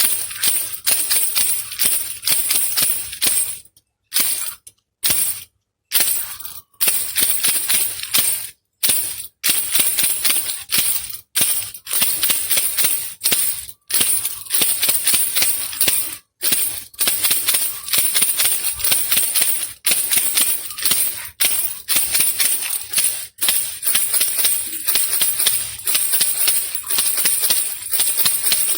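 Baby rattle (khulkhula) shaken continuously in a rapid rattling rhythm, with several brief pauses, most of them in the first third.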